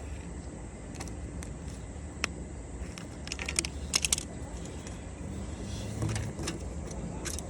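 Light metallic clicks and clinks of hand tools and small metal parts being handled, with a short jangling cluster about three and a half to four seconds in.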